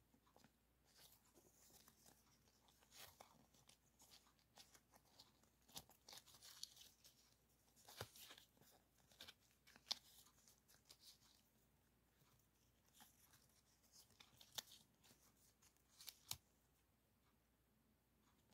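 Die-cut flake stickers crinkling and rustling as they are shuffled and sorted in the hands: quiet, with irregular sharp little crackles and clicks throughout.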